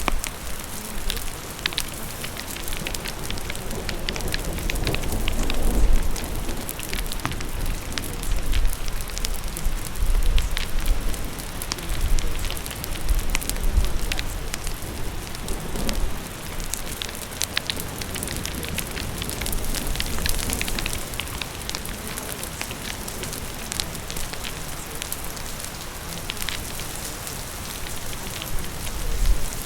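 Steady rain, mixed with a fire crackling in scattered sharp pops, over a low rumble that swells and fades.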